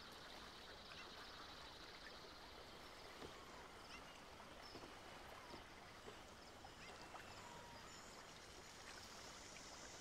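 Quiet woodland ambience: a faint steady hiss with scattered short bird chirps.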